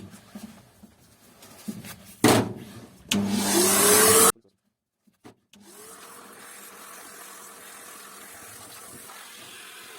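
Vacuum cleaner sucking loose toner out of a laser printer's developer unit. A knock comes just after two seconds. The motor then starts with a rising whine, runs loudly for about a second and cuts off suddenly. About five and a half seconds in it starts again, quieter, runs steadily and winds down near the end.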